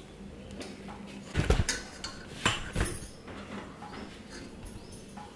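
Plastic spoon knocking and scraping against the inside of a non-stick pot of cooked biryani rice, a few separate knocks, the loudest about a second and a half in.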